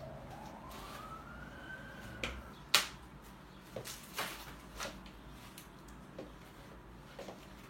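A faint siren wail gliding down and back up in the first couple of seconds. Then scattered sharp clicks and knocks of stroller parts being handled, the loudest about three seconds in.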